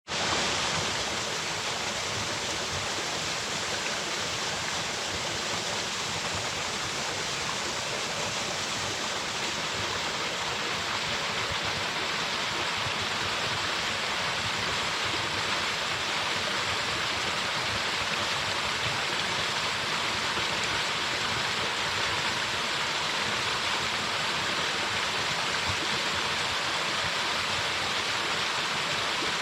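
Waterfall plunging into a pool: a steady, unbroken rush of falling water, bright and even.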